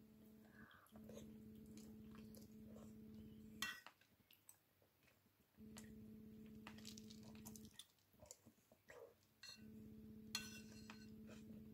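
A metal spoon clinks against a ceramic soup bowl twice, with soft eating and handling noises between. A low steady hum comes and goes underneath.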